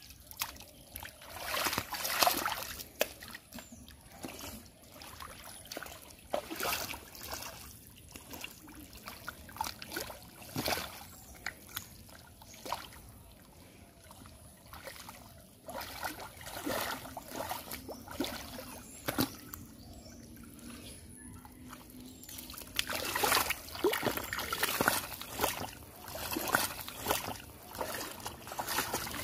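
Muddy pond water splashing and sloshing as a person gropes in it with bare hands and wades through the shallows, in uneven splashes that grow louder and busier near the end.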